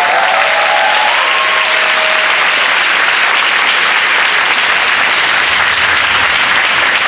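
Large audience of schoolgirls applauding steadily, with a few rising cheers in the first couple of seconds.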